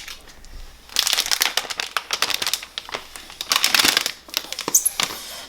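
Packaging material crinkling and rustling as it is handled and pulled off a newly unboxed iMac, starting about a second in.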